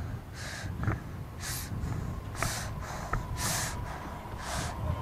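Heavy breathing close to the microphone: a hissing breath about once a second over a low rumble.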